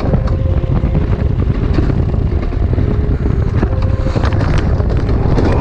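Wind buffeting the microphone of a rider on an alpine coaster sled running fast down its tubular steel rail, with the steady rumble of the sled on the track and scattered clicks.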